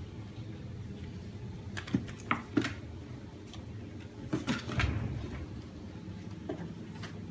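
Kitten scrabbling at and bumping into a cardboard box: a few quick taps and scrapes about two seconds in, then another cluster about four and a half seconds in, over a low steady hum.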